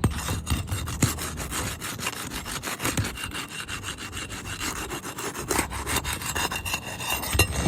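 Continuous gritty scraping and rasping as a tool is worked under an asphalt shingle to break its sealant bond, in rapid, irregular strokes.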